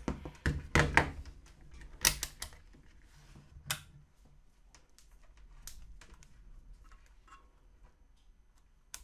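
Handling clicks and knocks as a handheld digital multimeter and its test leads are picked up, set down on a wooden workbench and worked by hand. There are a few sharp knocks in the first two seconds, one more a little later, then fainter scattered ticks.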